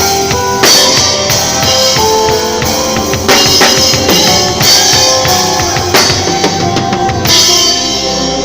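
Drum kit played loudly within music that has held pitched notes, with cymbal crashes about every two to three seconds; the drumming thins out near the end.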